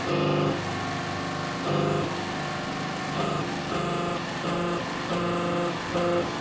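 Hydraulic press running while its ram pushes down on a thick steel armour plate to straighten it. A steady mechanical hum swells into a pitched drone in short, irregular bursts of about half a second as the press is worked.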